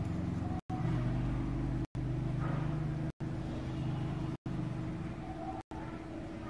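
A steady low hum made of several held tones, broken by brief dropouts to silence about every second and a quarter.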